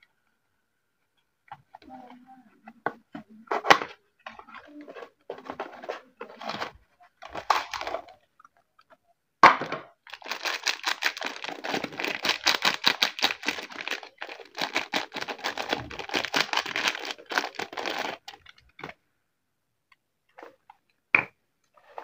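A cardboard soap box is opened by hand and a paper wrapper is torn and crinkled off a bar of soap. It starts with scattered clicks and short rustles, then a sharp tear about nine seconds in. About eight seconds of continuous crinkling and tearing paper follow, and a couple of light taps come near the end.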